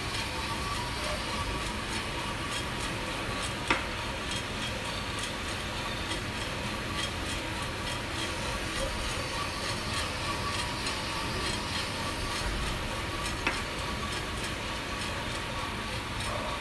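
Drum coffee roaster running: a steady whir from the fan and rotating drum with roasting beans tumbling inside, and two sharp clacks, about four seconds in and near the end.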